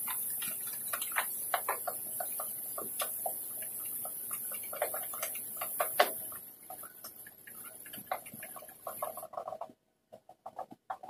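Irregular light clicks and taps of hands and small parts working the fittings inside a detached pickup front bumper, with one sharper click about six seconds in; the sounds grow fainter in the second half.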